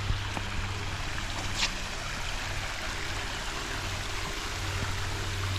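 Steady rush of flowing water from a creek or waterfall, with a low steady hum underneath.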